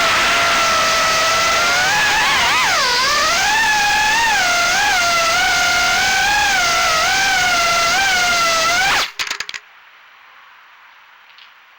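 3-inch FPV quadcopter's brushless motors and propellers (GEPRC 1206 4500kv motors, Gemfan 3028 props) whining under flight, the pitch rising and falling as the throttle changes. The sound stops abruptly about nine seconds in with a few brief clicks, leaving only a faint hiss.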